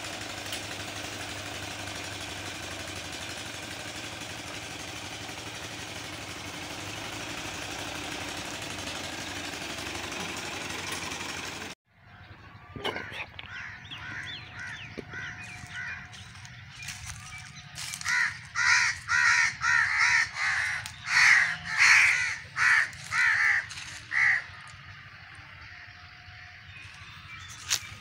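Massey Ferguson tractor's diesel engine running steadily, driving two tube-well pumps by belt, with water gushing from two pipes into a concrete tank; the sound cuts off about twelve seconds in. Then a crow caws over and over, a loud run of caws in the second half.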